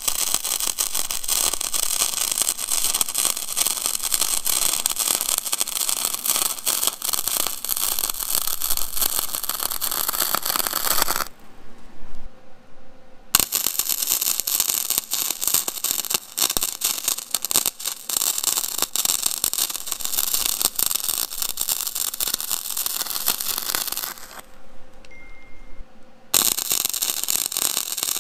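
MIG welding arc from a Vulcan OmniPro 220 crackling steadily as a bead is run on steel. It stops for about two seconds around eleven seconds in and again near the end, then the arc is struck again.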